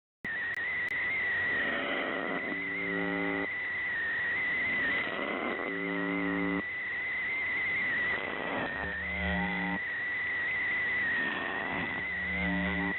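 Shortwave receiver tuned to UVB-76 ("The Buzzer"): its short buzz tone sounds four times, about a second each and roughly every three seconds, through radio hiss. A steady, slightly wavering whistle runs over the signal throughout.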